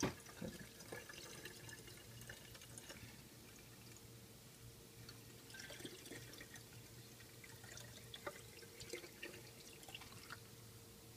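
Liquor trickling and dripping faintly from an upturned bottle through a plastic funnel into a glass wine bottle, with a brief knock at the start.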